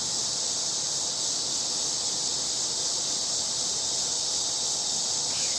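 Steady chorus of insects: a continuous high, even buzz with no breaks.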